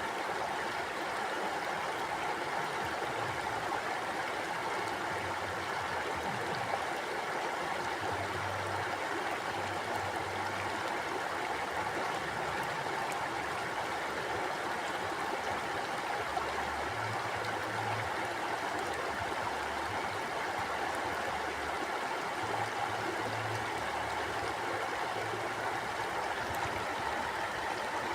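Mountain stream flowing steadily over rocks: a continuous, even rush of water.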